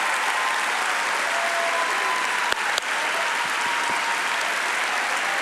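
A large congregation applauding steadily, with two sharp, louder sounds close together about halfway through.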